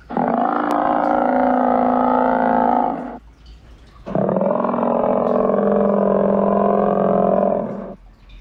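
Giant-monster roar sound effect: two long, steady-pitched roars of about three and four seconds, with a short gap between them.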